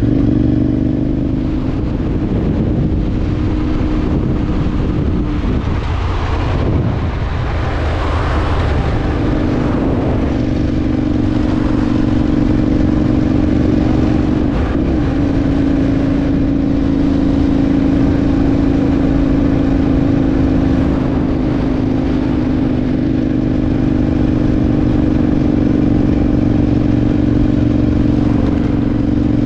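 Adventure motorcycle engine running at a steady pace while riding, over wind and road rumble. The engine note drops away about six seconds in and picks up again about three seconds later.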